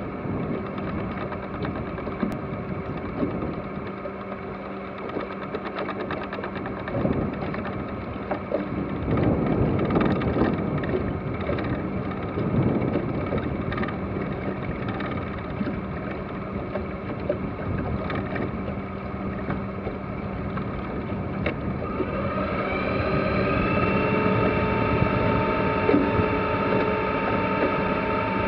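A sailboat's small inboard engine running steadily at idle, a low even hum. About three-quarters of the way through it grows louder and rises a little in pitch as it is throttled up to motor the boat out of its berth.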